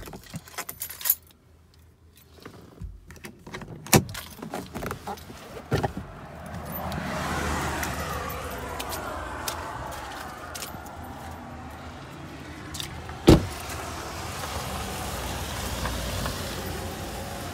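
Car door being unlatched and opened, with keys jangling and several clicks, then a steady rumbling din from about six seconds in, with one loud knock about thirteen seconds in.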